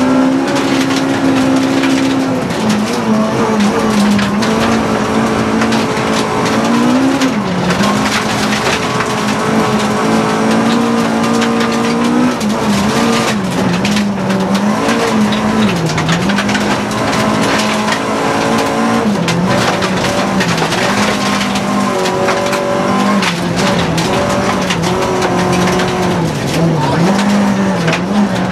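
Rally car's engine at racing speed on a gravel stage, heard from inside the cabin. Its note holds high, then dips and climbs again several times as the driver lifts off and changes gear, over a steady rush of gravel and tyre noise.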